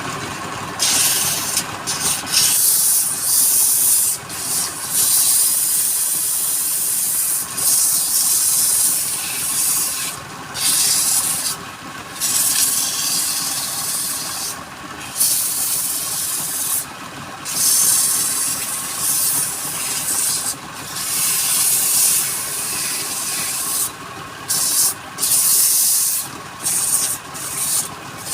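Tool working wood spinning on a lathe: a loud, scratchy hiss that cuts out for a moment every second or few, over a faint steady hum.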